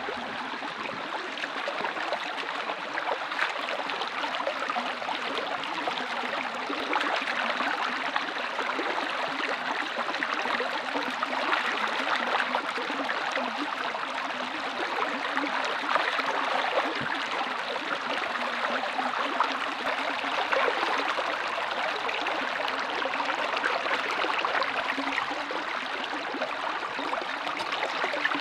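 Shallow stream running over rocks, a steady babble of water.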